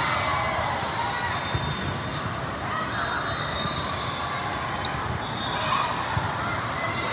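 Volleyball tournament hall din: balls being struck and bouncing on many courts, with short high squeaks and the voices of players and spectators, all echoing in a large hall.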